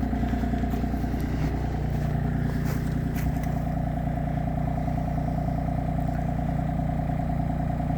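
Engine running steadily at an even speed, with a few light clatters over it.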